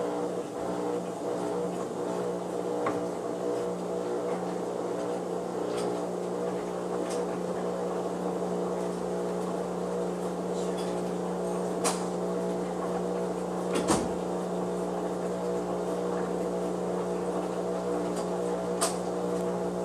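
Front-loading washing machine running, a steady motor hum with laundry turning in the drum. A few short sharp knocks sound over it, the loudest about two-thirds of the way through.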